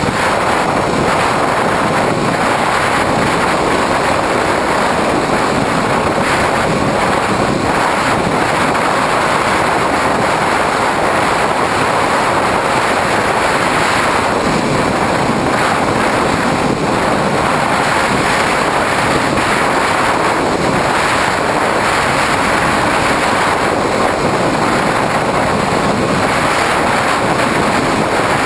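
Steady rush of airflow over the onboard camera of a Skywalker FPV plane in cruising flight, with the steady hum of its electric motor and propeller underneath.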